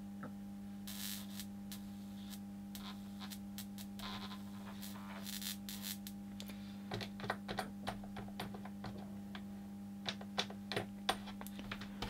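High-voltage insulation tester applying 3750 volts through its probe to a wire in a lever connector: a steady hum with faint irregular crackling clicks, the clicks more frequent in the second half. The tester does not trip, which means the connector's insulation is holding.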